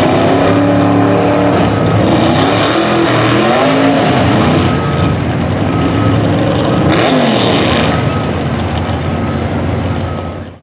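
A mud truck's engine revving hard in deep mud, its pitch repeatedly climbing and falling. The sound cuts off abruptly near the end.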